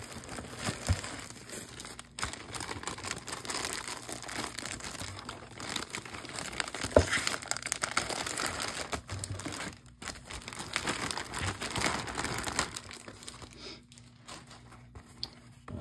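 Clear plastic bag crinkling and rustling as hands pull it open and work a mesh-backed hat out of it, with one sharp crackle about seven seconds in. The rustling gets quieter over the last couple of seconds.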